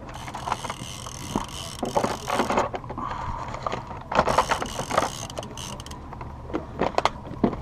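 Hands rummaging through a clear plastic tackle box: tools and tackle rattling and clicking in its compartments in irregular clatters.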